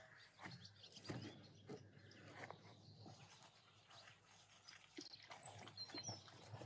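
Quiet outdoor ambience: a few soft knocks in the first couple of seconds and brief high bird chirps near the end.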